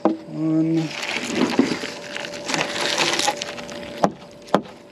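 A heavy steel object hauled up by hand on a magnet-fishing rope, to a counted "one": noisy handling and scraping of the effort, with sharp clicks right at the start, about four seconds in and again half a second later.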